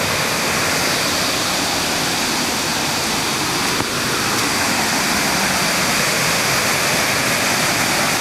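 Steady rush of a fast, muddy creek running over rapids near the falls.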